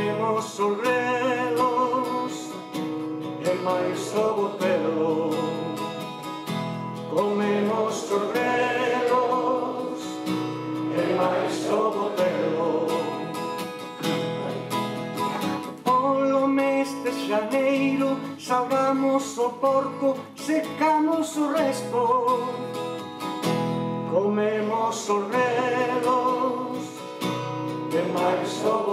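A man singing a song, accompanying himself on a strummed acoustic guitar.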